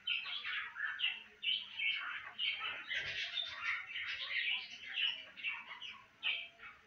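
Dry vermicelli crackling and rustling as a hand presses and crumbles it into a glass baking dish, in short irregular bursts.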